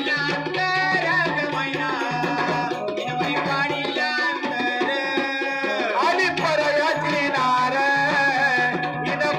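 Live Marathi devotional folk song: a singer's voice amplified through the stage PA over electronic keyboard and a steady hand-drum beat.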